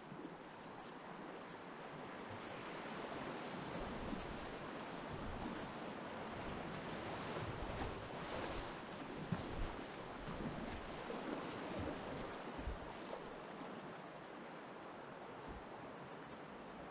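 River water rushing over shallow rapids and splashing against a kayak as it is paddled through, loudest in the middle, with a few sharper splashes over the bow.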